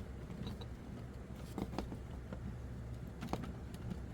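A few faint, short clicks and light scratchy handling noises over a steady low hum.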